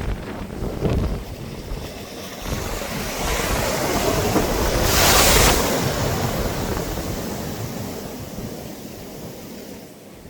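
Sea waves breaking on a beach: the surf swells to a crash about five seconds in, then washes back and fades, with wind buffeting the microphone.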